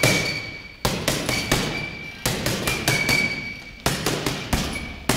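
Gloved punches landing on a leather heavy bag: about ten sharp thuds, in uneven combinations, each echoing in a large hall, with a thin high ring lingering after several of them.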